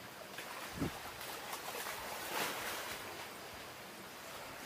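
Sea waves washing steadily on the shore, swelling about halfway through, with one soft low thump about a second in.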